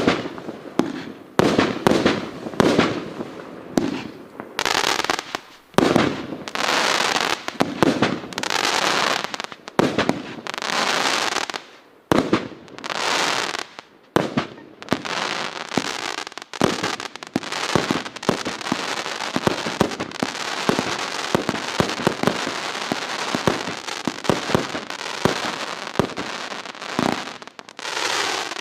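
Riakeo Peking Opera 100 firework battery firing shot after shot: sharp launch reports and bursts mixed with stretches of crackling, turning into a denser, almost continuous crackle with rapid reports in the second half.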